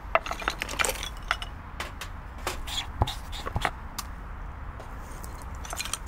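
Irregular wooden knocks, clicks and scrapes, densest in the first second and a half and again around three to four seconds in, over a steady low rumble.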